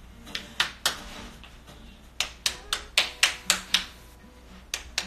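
Sharp hand slaps in quick runs of about four a second: three, then a run of about seven, then two near the end.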